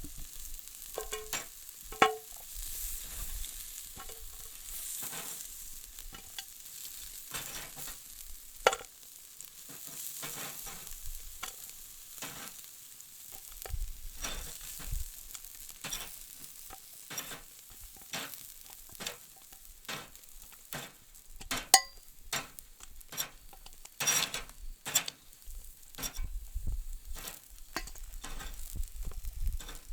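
Food sizzling on a barbecue grill: a steady hiss with irregular crackles and pops from spitting fat, a few sharp loud pops standing out.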